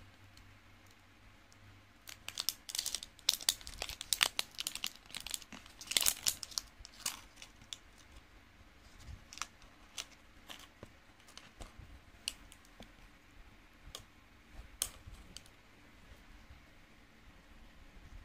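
Crinkly packaging being handled by hand: a dense run of crackling and crumpling from about two to seven seconds in, then scattered single clicks and rustles.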